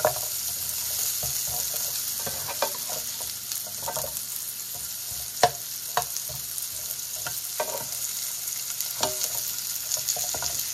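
Delicata squash slices sizzling in oil in a skillet, with irregular scrapes and taps of a slotted spatula against the pan as the slices are flipped; the sharpest tap comes about halfway through.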